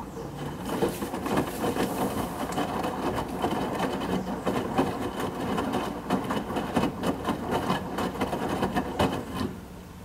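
Drum of a Midea HealthGuard Smart 13 kg front-load washing machine turning in the pre-wash, with wet, soapy cotton laundry tumbling and splashing inside. The tumbling starts at once and stops shortly before the end as the drum pauses.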